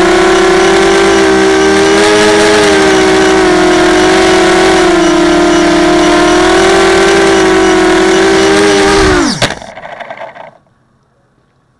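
ZMR250 racing quadcopter's electric motors and propellers, heard from its own onboard camera: a loud, steady buzzing whine that wavers a little in pitch with throttle. About nine and a half seconds in, the motors cut and spin down in a quick falling whine as the quad comes down, leaving near quiet.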